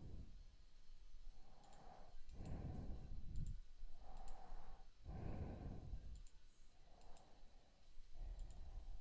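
Slow breathing close to the microphone: three or so breaths in and out, each about three seconds. Faint mouse and keyboard clicks come over it.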